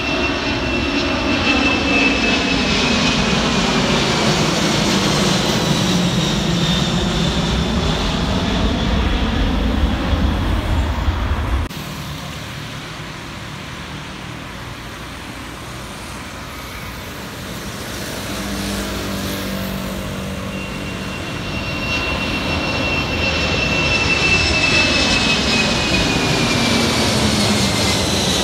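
Boeing 747 jet engines roaring as the four-engine airliner climbs out overhead, with a whine that falls in pitch as it passes. About twelve seconds in the sound cuts abruptly to a quieter rumble. Near the end the roar and falling whine build again as a 747 passes low overhead.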